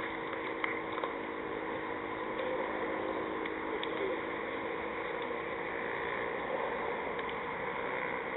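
Steady open-air background noise at a cricket ground, with a faint continuous hum; a few sharp claps in the first second.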